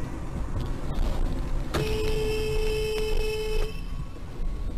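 A car horn sounds once, held for about two seconds, over steady road and engine rumble heard from inside a car.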